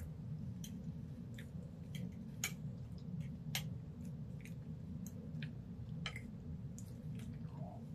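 Close-miked chewing of a mouthful of red beans and rice with fufu, with scattered short, sharp clicks, over a steady low hum.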